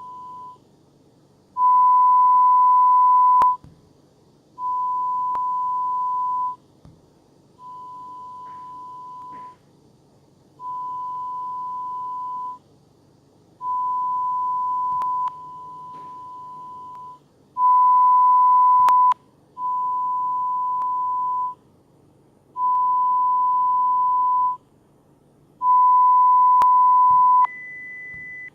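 Pure-tone hearing-test beeps from a mobile audiometry app: a series of steady single-pitch tones, each about two seconds long with about a second's pause between, stepping louder and quieter from tone to tone as the test searches for the hearing threshold. One tone drops in level partway through, and near the end the tone jumps an octave higher to test the next frequency.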